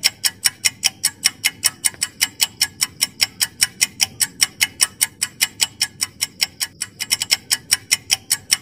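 Countdown-timer sound effect: rapid, even clock ticks, about five a second, marking the time given to answer a quiz question.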